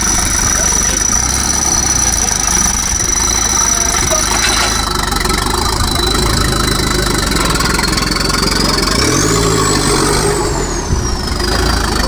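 Off-road 4x4 engine idling, revving briefly about nine seconds in. A high whine rises and falls along with the rev.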